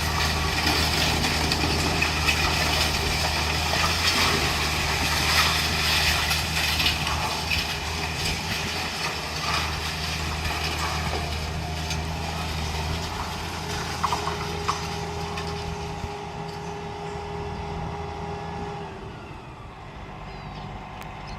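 Heavy diesel machinery running steadily at a demolition, with repeated clanking and knocking over the engine. The engine and clatter ease off after about thirteen seconds, and a steady tone is held for a few seconds near the end.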